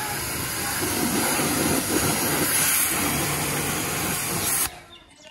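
High-pressure water jet from a pressure washer gun spraying a car, a steady loud hiss that cuts off suddenly near the end as the trigger is released.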